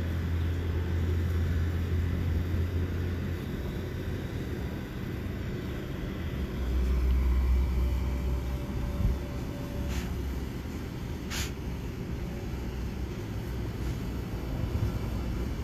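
Farm tractor engine running, a low steady rumble that drops in pitch and grows louder about six seconds in.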